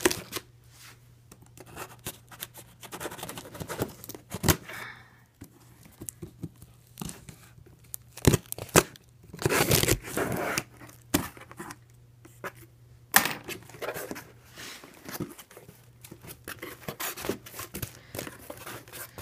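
A cardboard USPS mailing box being torn open by hand: packing tape and cardboard tearing and rustling in irregular bursts with sharp clicks and scrapes, loudest about eight to ten seconds in. Near the end, hands rub against the box's white foam shipping liner.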